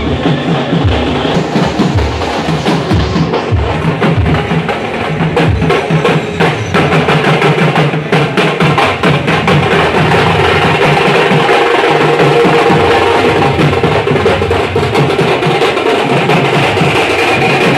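Drums beating a loud, fast rhythm, with a thicker, steadier layer of sound building up about halfway through.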